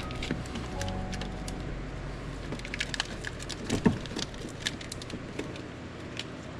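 Scattered light clicks and knocks, with one louder knock about four seconds in, over a steady low hum.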